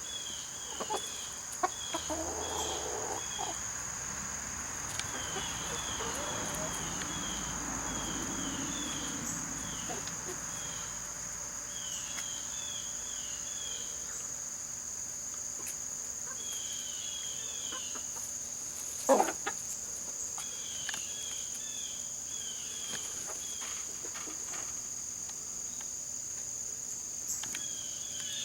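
Australorp chickens clucking softly, mostly in the first third, over a steady high trill of insects and repeated groups of short high chirps. A single sharp knock about two-thirds of the way through is the loudest sound.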